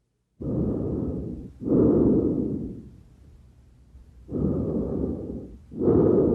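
Tracheal breath sounds: two full breaths, each an inhalation followed straight away by a louder exhalation, with a pause between the breaths.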